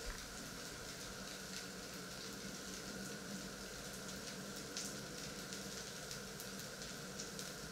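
Faint steady sizzling of food frying in a pan, with scattered small crackles over a low steady hum.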